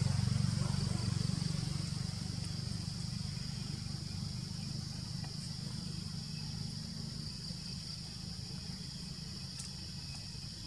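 Outdoor forest ambience: a steady high-pitched insect drone over a low rumble that is loudest in the first couple of seconds and then settles.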